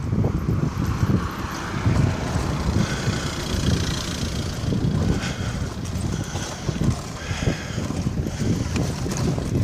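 Wind buffeting the microphone of a moving bicycle, with rumble from the wheels rolling over asphalt and brick paving.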